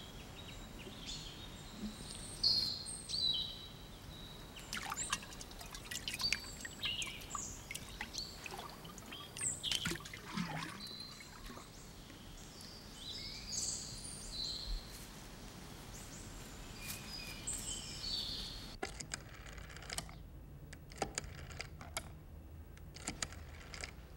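Small birds chirping in short, high, quick calls, with scattered clicks and light rustling. Near the end the birdsong stops and only a few sharp clicks are left.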